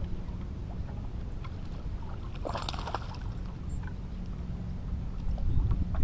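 Small fishing boat on a lake: a steady low rumble with water lapping against the hull. A brief splashy burst comes about two and a half seconds in.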